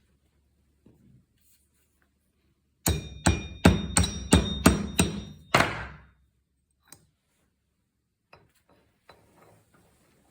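A hammer striking a screwdriver to knock the old bushing out of a Piaggio Boxer scooter's variator torque driver: a quick run of about eight sharp metal strikes, roughly three a second, with a ringing tone, starting about three seconds in.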